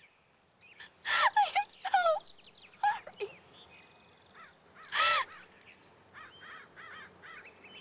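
A young woman sobbing and wailing, a string of loud broken cries that fall in pitch, with one longer rising-and-falling wail about five seconds in, then fainter whimpers.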